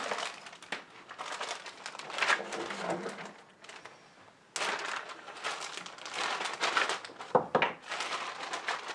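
Plastic parts bags crinkling and rustling as they are handled, in irregular bursts with a short pause partway through and a couple of sharper knocks near the end.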